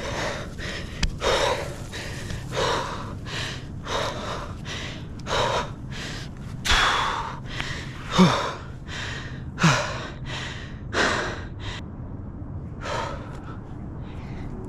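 A climber breathing hard and fast with effort during a branchless climb up a tree trunk: quick, gasping breaths in and out, with a short pause near the end.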